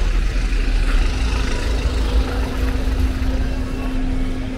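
Street traffic on a rain-wet road: car engines running and idling close by over a low, steady rumble. A steady engine hum sets in about half a second in.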